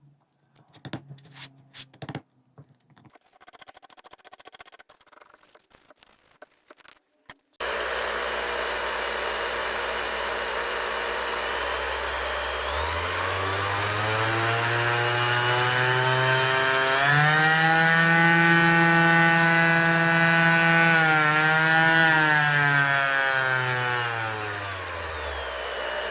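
Makita BO6030 orbital sander handled with a few faint clicks and rustles, then switched on about seven seconds in. Its motor runs with a pitch that climbs over several seconds, holds, then falls back near the end.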